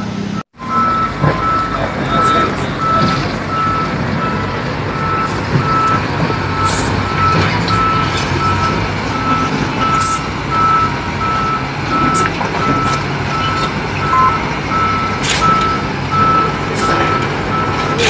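Heavy equipment at work: diesel engines running steadily under a backup alarm beeping at about one beep a second, with a few sharp clatters of rubble.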